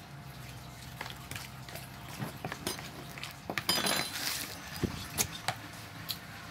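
Plastic spatula stirring a runny fishing-bait batter in a plastic bowl: soft scraping with scattered clicks and taps, and a louder burst of noise about four seconds in.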